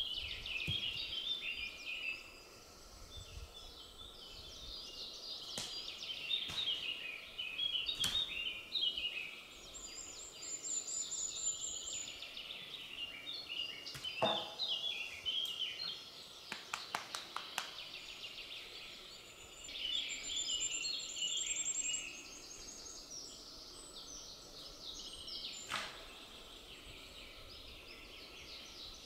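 Several songbirds singing and chirping in a forest, with scattered sharp clicks or snaps and a quick run of them about two-thirds of the way through.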